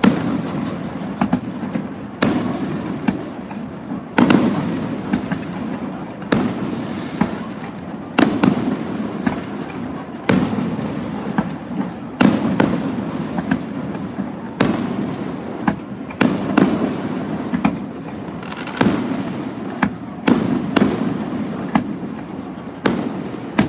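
Aerial fireworks bursting one after another, sharp bangs every second or two with echoing tails and smaller pops in between.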